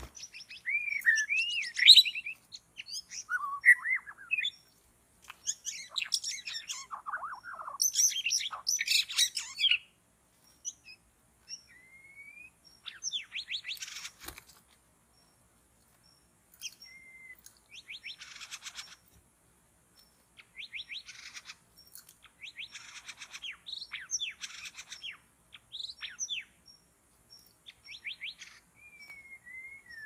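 White-rumped shama song: varied clear whistled phrases, some sliding up and down, mixed with fast chirping trills, coming in bursts with short pauses. One short tap comes about halfway through.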